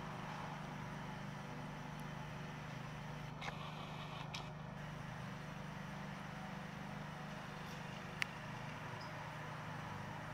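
Steady low hum over an even background hiss, with a single sharp click about eight seconds in.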